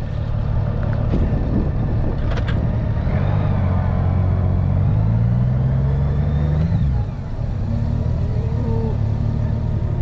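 Honda Gold Wing F6B's flat-six engine running at low road speed. Its pitch rises steadily for a few seconds as it gathers speed, then drops off abruptly about seven seconds in.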